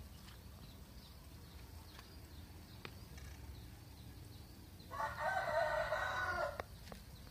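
A rooster crowing once, about five seconds in, a single call lasting about a second and a half.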